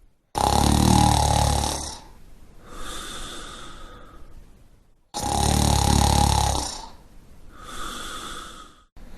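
A person snoring: two loud, long snores with a fast low flutter, about five seconds apart, each followed by a quieter breath.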